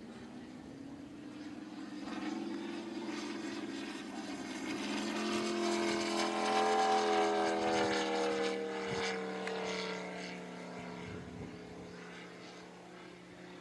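Radio-controlled scale Hawker Sea Fury model plane on a flyby, its engine and propeller droning louder and peaking about seven seconds in. The pitch drops as it passes, and the sound then fades away.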